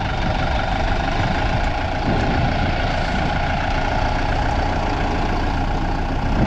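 Diesel engine of a front-loader farm tractor running steadily as the tractor drives in with its loaded bucket raised.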